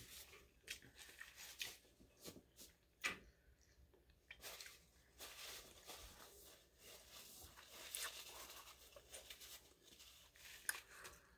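Faint chewing, with scattered soft clicks and brief rustles of food and wrapper paper.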